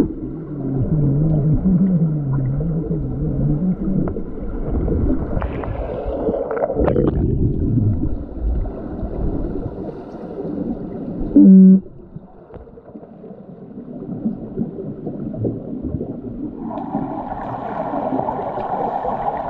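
Underwater sound in a swimming pool during an underwater rugby game: continuous muffled rumbling and water noise from players moving and kicking with fins. A wavering low hum runs through the first few seconds, and a short, loud pitched tone comes about halfway through.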